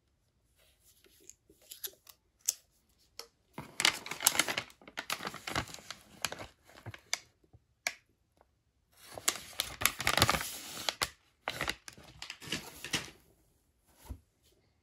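Plastic snack packaging being handled and crinkled, in two long stretches of rustling, with scattered small clicks and taps between them.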